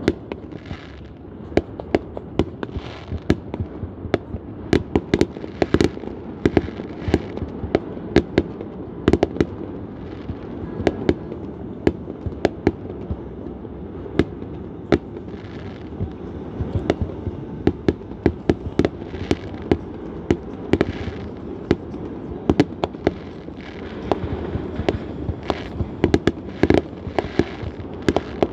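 Fireworks display: a dense string of sharp bangs from aerial shells bursting and launching, several a second at the busiest moments.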